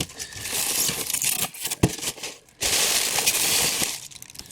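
Packaging rustling and crinkling as statue parts are unwrapped and handled, with a few sharp clicks about a second and a half in and a longer burst of rustling in the second half.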